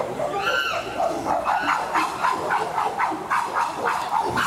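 Chimpanzees calling loudly, a quick run of short high calls that rise and fall, several a second. These are excited calls amid the commotion of an adult male's noisy entrance display.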